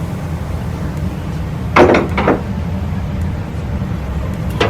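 Sharp knocks of hand tools and metal parts being worked while prying off motorcycle tail-light and fender hardware: two close together about two seconds in and a third near the end, over a steady low hum.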